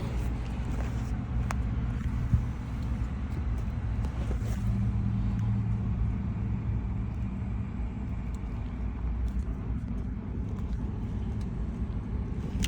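A car engine idling steadily, a low even rumble with a couple of faint clicks over it.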